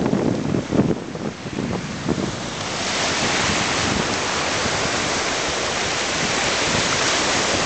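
Small lake waves washing and breaking over a rocky shoreline in strong wind, with wind buffeting the microphone. About three seconds in the gusty low rumble eases into a steady, even hiss of wind and surf.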